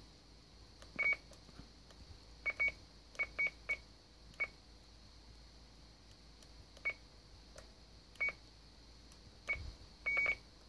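Kenwood TR-751A transceiver beeping as its front-panel keys are pressed, each press confirmed by a short, high beep. About a dozen beeps come at irregular intervals, several in quick pairs, and one near the end is held a little longer.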